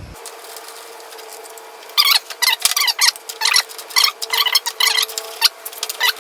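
Small metal hardware and hand tools clinking and scraping in quick, irregular clicks, starting about two seconds in, over a faint steady hum.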